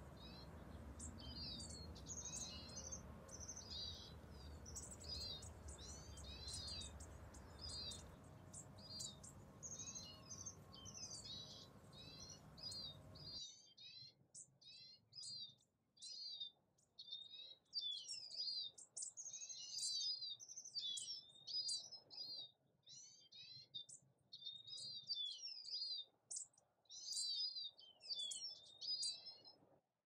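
Small songbirds chirping continuously, with dense high, short chirps several a second. A low background rumble under them stops abruptly about 13 seconds in.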